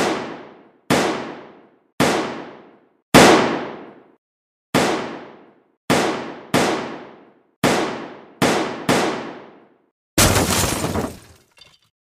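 A series of about ten sharp hits at uneven intervals, each ringing away over most of a second, followed near the end by a louder, denser noisy stretch.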